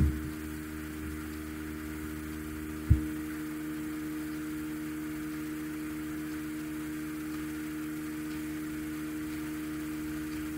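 Steady electrical hum, one pitched tone with its overtones, with a low thump right at the start and another about three seconds in.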